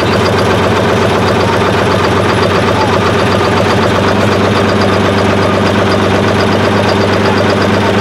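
Modified Ford 5000 pulling tractor's engine idling steadily.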